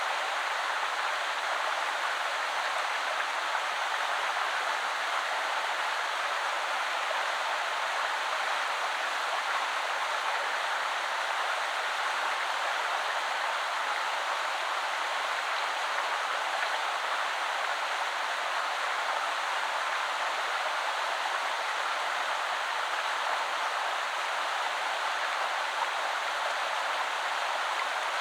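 Shallow woodland river flowing over stones, a steady rushing hiss of running water with no change in level.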